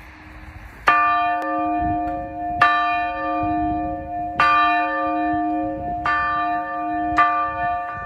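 Old bronze church bell rocked by hand, its clapper striking five times at intervals of about one and a half to two seconds, each stroke ringing on into the next.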